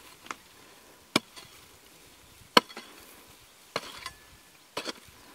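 A hand hoe strikes into dry earth about five times, a second or so apart: sharp chopping thuds of digging.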